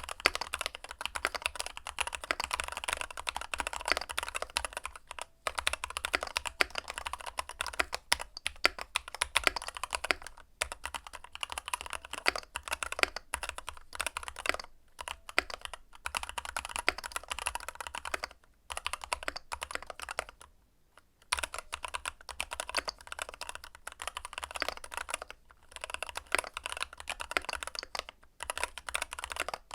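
Keychron K2 Pro mechanical keyboard being typed on in fast runs of keystrokes with a few short pauses. The keys have a rounded, knocking 'kotokoto' clack.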